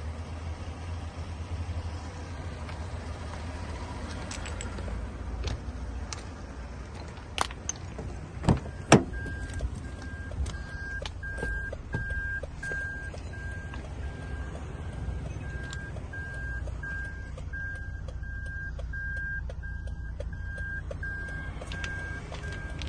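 A few loud clicks and knocks, then an evenly repeating electronic warning beep from a 2004 Toyota Prado's dashboard chime, over a low rumble. It is the reminder that sounds with the key in the ignition and the driver's door open.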